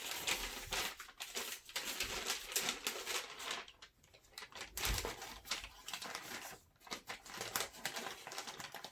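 Rustling and crinkling of a protective covering being handled and laid down, with many irregular small clicks and a couple of short pauses.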